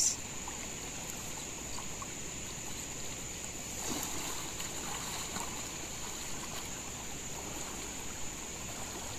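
Fast-flowing shallow river running over stones. About four seconds in, water splashes and drips as a cast net is lifted out of the current.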